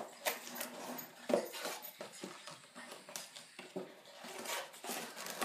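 Rustling and light clicks of cardboard and paper packaging as a small phone box is opened and a folded paper insert is pulled out, with several short sharp handling sounds.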